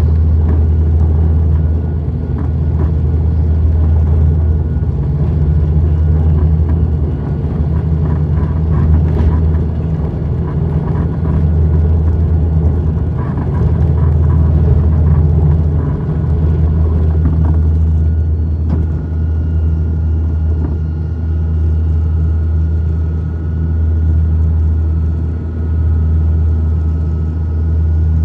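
Cabin noise of a high-wing turboprop airliner taking off: a loud, steady, deep drone of the engines and propellers, with rattles during the runway roll. About two-thirds of the way through a click is heard and a steady higher whine joins the drone as the plane climbs away.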